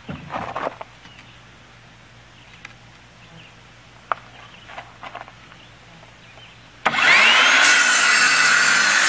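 Ryobi One+ 18V cordless compact miter saw (P551) switched on about seven seconds in: its motor spins up with a rising whine and the blade cuts through a 2x3 board, loud. Before that, only a few light knocks as the board is set in place.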